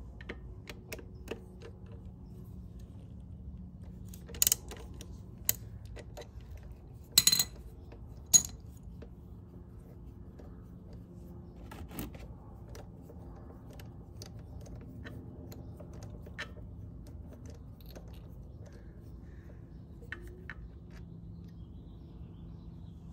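Sharp metallic clicks and clinks of a ratchet and socket on the drain bolt of a 2001 Honda Helix scooter's final drive case as the bolt is loosened. They come irregularly, a second or more apart, with the loudest cluster about seven seconds in.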